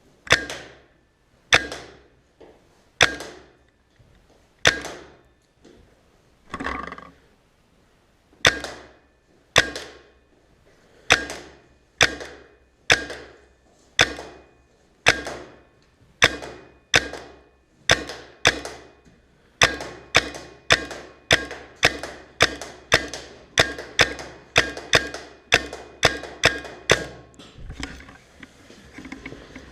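Tippmann 98 Custom semi-automatic paintball marker firing shot after shot, about thirty sharp pops in all. They come roughly one a second at first, then quicken to about two a second for the last several seconds.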